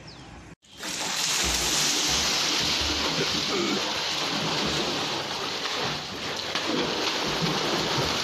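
Heavy, continuous splashing of water as two people thrash about in a small swimming pool, starting suddenly about half a second in.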